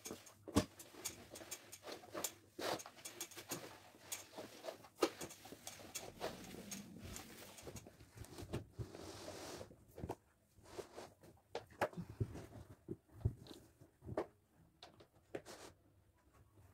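Irregular footsteps and knocks of foam clogs on a wooden floor, with a rug being handled, flipped and laid down; a longer rustling sweep of the rug about nine seconds in.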